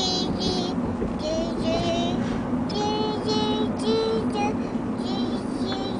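A small child making wordless sing-song vocal noise: a string of high, held notes with short breaks between them, over the steady hum of a moving car.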